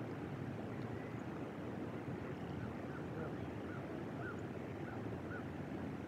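Steady low outdoor rumble, like wind on the microphone, with faint, short bird calls repeating every half second or so.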